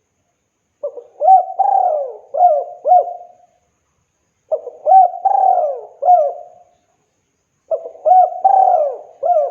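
Spotted dove (tekukur) cooing: three phrases of four or five quick, bending coos each, separated by short silences.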